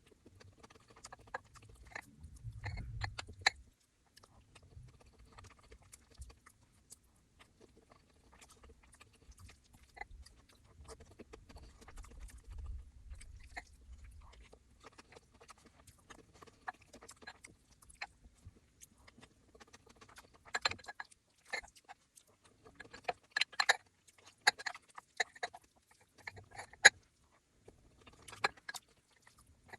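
Close-miked chewing and eating: a person chewing food with scattered sharp clicks and crackles and a low rumble. The clicks come thicker and louder for a stretch about two-thirds of the way through.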